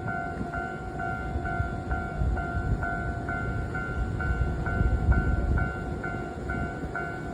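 Japanese level-crossing warning bell ringing steadily, a repeating electronic clang about two and a half times a second, while a train rumbles past the crossing.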